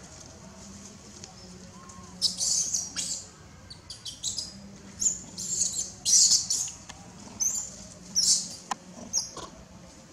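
Baby macaque screaming in a run of short, very high-pitched shrieks, about ten of them, starting about two seconds in and stopping shortly before the end. These are distress cries from a young monkey being dragged and handled roughly.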